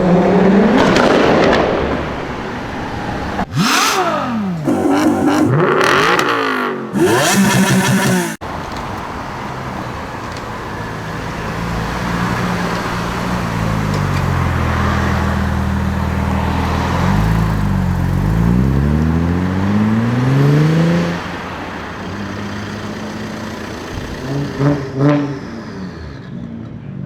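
Audi RS4 B5 2.7-litre twin-turbo V6 engines revving and accelerating in a string of short clips cut together. In the first eight seconds there are quick rev blips that rise and fall. Then comes a long run with the engine pitch climbing and dropping through gear changes, and a few short blips near the end.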